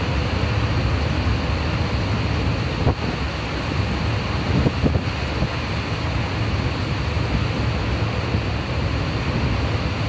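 Large waterfall rushing steadily into a fjord, a deep, even noise heavy in the low end, mixed with wind buffeting the microphone in a few brief gusts about three and five seconds in.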